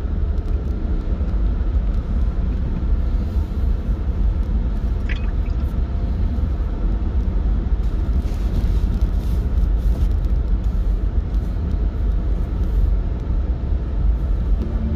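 Steady low rumble of a car being driven, heard from inside the moving car, with a brief faint chirp about five seconds in.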